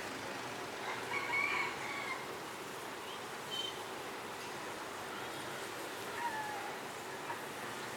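Faint bird calls over a steady background hiss: one call lasting about a second near the start, a short high note, and a falling note later on.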